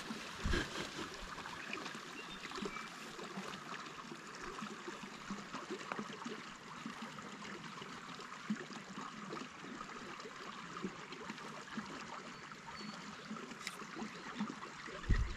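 Small creek running with a steady, even trickle.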